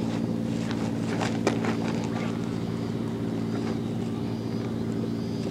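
Boat engine idling with a steady low hum. A few small clicks and rustles of hands handling corn bait come about one to two seconds in.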